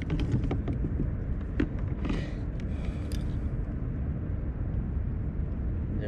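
Steady low rumble of wind on the microphone, with scattered light clicks and knocks from fishing gear being handled in the first three seconds.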